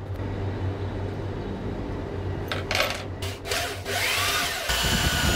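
Power drill driving screws into a melamine-faced chipboard fence board, in a few short runs over the second half, the motor pitch rising and falling, with the loudest run near the end.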